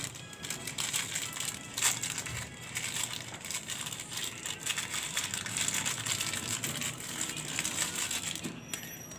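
A plastic wrapper crinkled and crumpled in the hands, a dense run of small crackles that dies away near the end.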